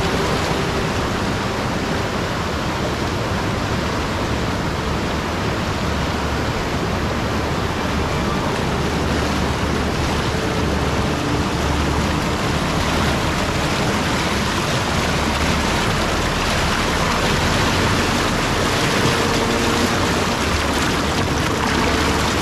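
Fast-flowing river rushing and churning over rocks and rapids, a loud, steady noise of moving water close to the microphone.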